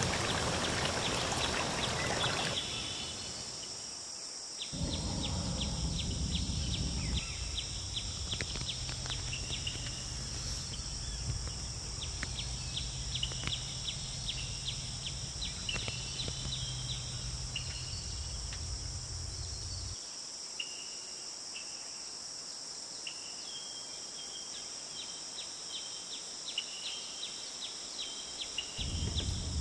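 Outdoor insect chorus: repeated rapid chirping trills over a steady high-pitched insect drone, with a low rumble underneath that stops about twenty seconds in.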